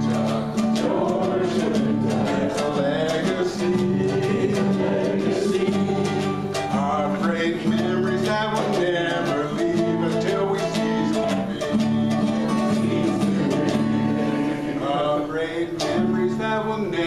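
Acoustic guitar and ukulele strumming together in an instrumental passage of a Hawaiian-style song.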